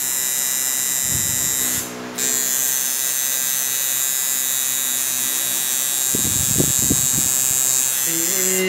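Electric tattoo machine buzzing steadily as the needle works ink into skin, cutting out briefly about two seconds in and then starting again.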